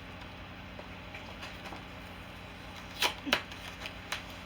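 Plastic packaging being handled, with a few short sharp crinkles about three seconds in and another near the end, over a faint steady room hum.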